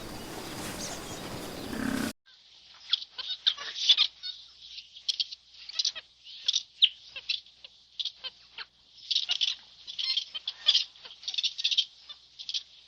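A group of birds chirping and peeping: many short, high-pitched, overlapping calls in quick clusters. Before this, a rough, noisy animal sound cuts off abruptly about two seconds in.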